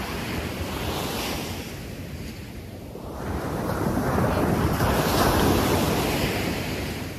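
Ocean surf breaking and washing up a sand beach, with wind buffeting the microphone. The wash dips briefly, then swells to its loudest as a wave breaks about four to six seconds in.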